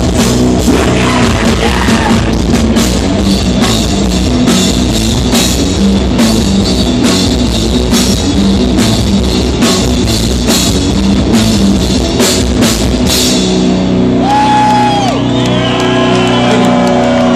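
Live rock band playing loud through a club PA: heavy drum kit with distorted guitar and bass. About 13 seconds in, the drumming stops and the last chord rings on.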